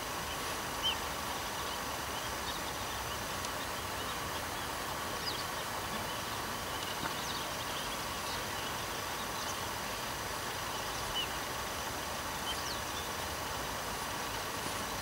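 Outdoor ambience: a steady hiss with faint steady tones, and occasional short high bird chirps every few seconds.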